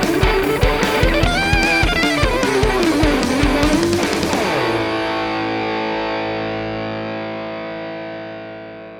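Gibson '58 Historic Les Paul electric guitar through an overdriven Marshall JCM800 amp, playing a fast chugging riff with a note bent up and back down. About halfway through it ends on a chord left ringing, which fades slowly away.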